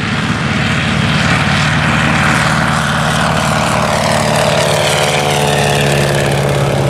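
Boeing Stearman Model 75 biplane's radial engine and propeller at full takeoff power as it lifts off and passes by, the pitch sliding gradually lower in the second half as it goes past.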